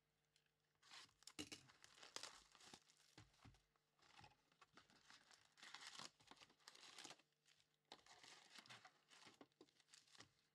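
Faint crinkling and tearing of plastic shrink wrap on a Donruss Football trading-card box, then the crackle of foil card packs being pulled out and handled.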